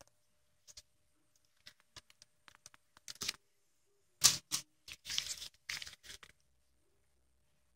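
Handling noise from gloved hands and supplies: scattered soft clicks, then a run of short crinkling rustles, loudest about four seconds in.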